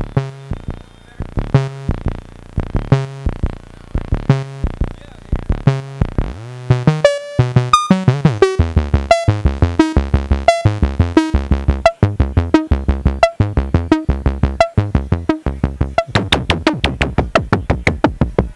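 Verbos Electronics modular synthesizer playing a sequenced pattern of short, plucky notes shaped by its Amp & Tone low-pass-gate-style voice. It starts as a sparse pulse of about one note every two-thirds of a second. About seven seconds in it turns into a faster, busier line with swooping pitch changes, and it gets denser again near the end.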